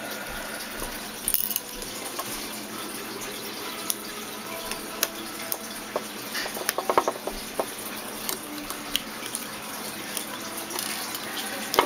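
Small screwdriver clicking and scraping against the screws and plastic housing of an IP security camera being taken apart, scattered small clicks over a steady hiss.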